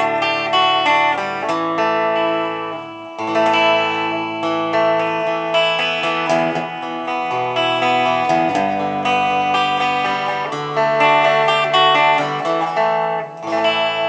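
Fender Squier Telecaster Affinity electric guitar played through an amplifier: chords and notes ringing and changing every second or two, with fresh strums about three seconds in and near the end. The tone control is rolled down, mellowing the highs.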